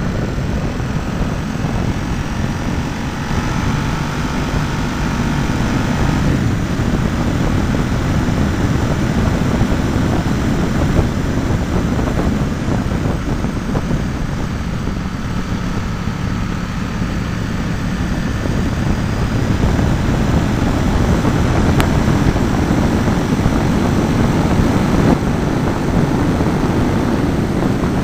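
Ducati Monster S4's liquid-cooled V-twin engine running under way, heard through heavy wind rush on a small camera mounted low on the bike. The engine note shifts as the revs change through the bends.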